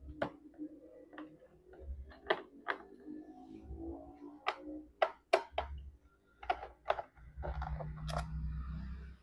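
Sharp, irregular clicks and taps of a screwdriver and small screws against a laptop's plastic bottom case as the case screws are taken out. Low handling rumble in the last second and a half.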